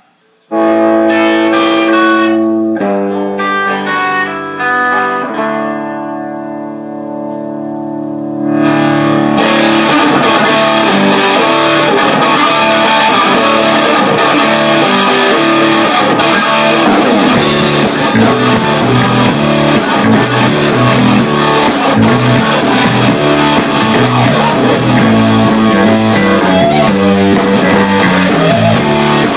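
Rock band playing live: an electric guitar opens with held, ringing chords, then about nine seconds in the full band comes in with guitars and drums, the cymbals growing louder from about seventeen seconds.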